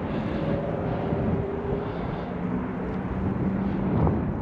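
Steady engine rumble with a faint humming drone, and a short knock about four seconds in.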